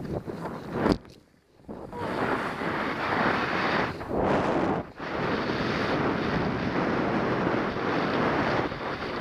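Wind buffeting a helmet camera's microphone and skis hissing through snow. About a second in there is a sharp knock, then a brief near-silence, and from about two seconds in the steady rush of wind and snow resumes as the skier lands and skis away.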